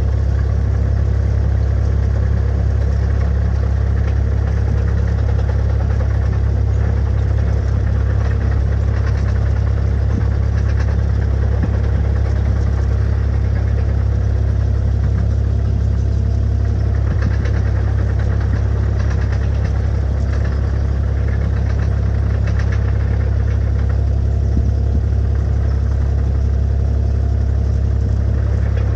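Vehicle engine running steadily at constant speed, close by, with a strong low hum and no change in revs.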